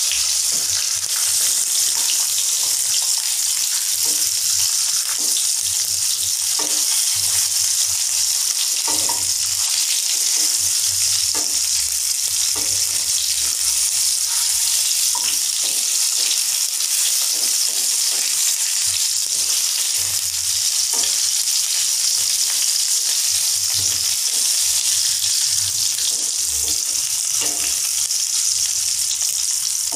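Peeled pointed gourds (potol) shallow-frying in mustard oil in a wok, a steady high sizzle, with now and then the scrape of a wooden spatula turning them.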